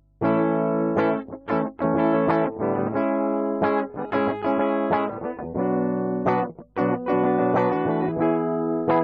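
Guitar strumming chords as the song's instrumental intro, starting abruptly just after the beginning.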